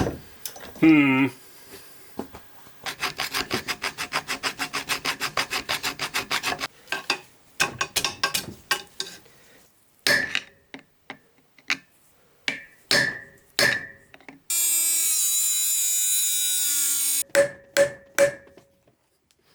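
Hand tools working a seized metal part of an old turbine governor: a fast run of about eight strikes a second for a few seconds, then scattered knocks, a steady high hiss lasting a few seconds, and several ringing metal taps near the end.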